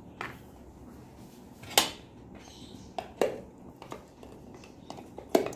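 A handful of short clinks and knocks as a metal spoon and a jar of pizza topping sauce are handled to scoop out the sauce, the loudest about two seconds in and near the end.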